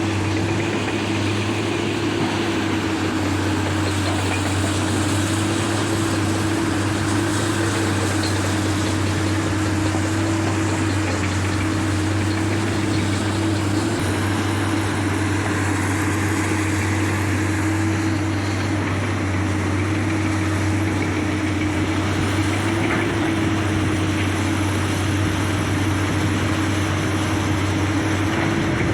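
Large diesel engine of heavy earthmoving machinery running steadily at a constant speed, with a strong low hum and a steady higher tone above it.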